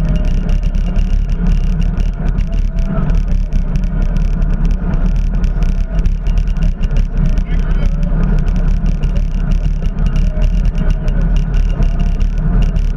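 Wind buffeting the microphone of a camera riding along on a bicycle: a steady low rumble. Faint voices sit behind it.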